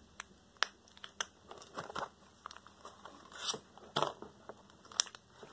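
Slime being squeezed and kneaded in the hand, giving irregular sticky clicks, pops and crackles as air pockets burst.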